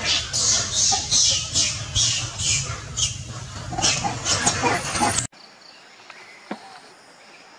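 Long-tailed macaque screaming in a string of shrill bursts, about two a second: the distress screams of a monkey under attack. About five seconds in the screaming cuts off suddenly, leaving a steady insect drone.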